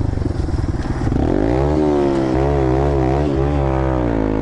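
Honda Grom's single-cylinder engine running under way. The pitch climbs about a second in, then rises and falls with the throttle.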